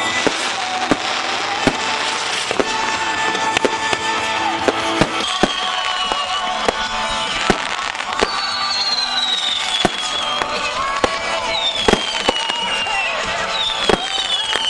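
Aerial fireworks going off, with repeated sharp bangs and crackles, then several high whistles that fall in pitch from about eight seconds in.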